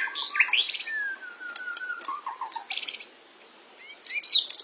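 White-rumped shama (murai batu) singing in a cage: quick chirps, a long falling phrase of whistled notes and a fast trill, then a short lull before loud sweeping notes near the end.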